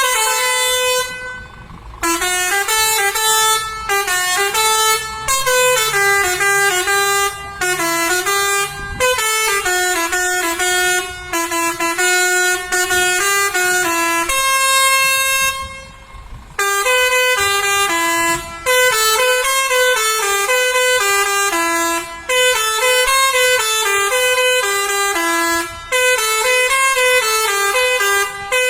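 Lorry's telolet horn, a multi-tone musical air horn, playing a stepping tune of short notes over and over, with a pause about two seconds in and another about halfway through.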